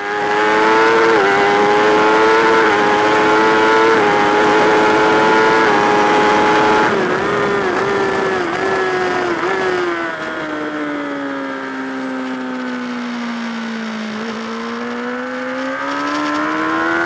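Sport motorcycle engine at speed on a race track, heard from on board with wind rush. It runs high and hard with brief dips in pitch for the first seven seconds. It then wavers and falls slowly as the bike slows into a corner, and rises again near the end as the throttle is picked up.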